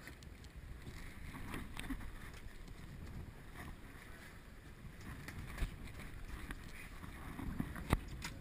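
Open-water boat ambience: wind buffeting the microphone and water washing along the hull, with a few sharp knocks, the loudest just before the end.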